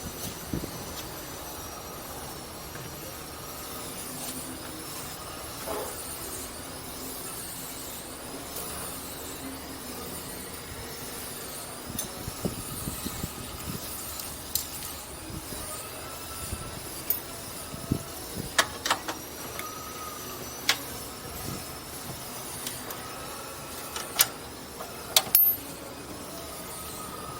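Mitsubishi 4G64 four-cylinder engine running under an open hood, heard as a steady hiss, with scattered sharp clicks and knocks, a cluster of them in the second half.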